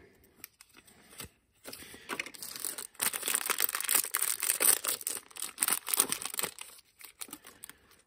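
Clear plastic packaging bag crinkling and tearing as an electrical outlet is pulled out of it by hand, in irregular crackles.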